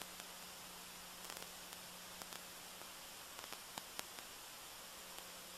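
Steady electronic hiss with a low hum and scattered faint clicks from a camcorder microphone that has cut out; the pressure washer spraying is not picked up.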